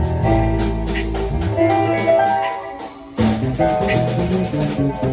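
Instrumental music with bass notes, drum hits and a melody line. The music thins out about two and a half seconds in, drops almost to nothing, and comes back in just after three seconds.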